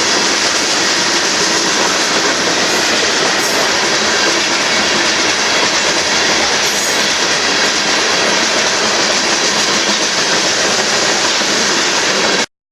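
Union Pacific freight train cars rolling past, a loud steady rumble and rattle of steel wheels on rail, with a couple of brief faint high squeals. The sound cuts off suddenly near the end.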